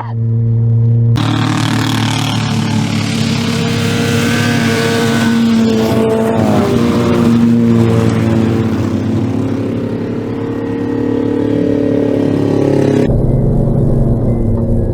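Car engines running hard and revving as cars race on a dirt track, the engine pitch rising and falling. The sound changes abruptly about thirteen seconds in.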